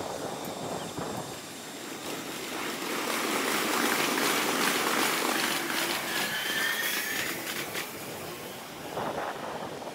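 Kintetsu electric train running on the tracks, its rumble swelling to a peak mid-way and easing off. A brief high whine of two thin, slightly rising tones sounds about six to eight seconds in.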